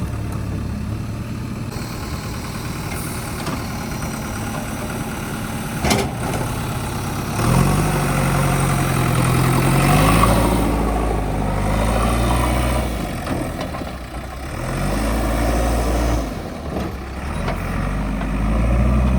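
JCB 3DX backhoe loader's diesel engine idling, then revving up about seven seconds in, its pitch rising and falling as it works, easing off and revving again near the end. A single sharp click sounds about six seconds in.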